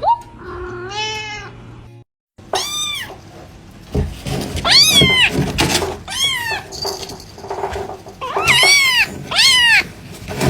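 Cats meowing: one meow about a second in, then after a brief silence a string of loud meows, each rising and falling in pitch.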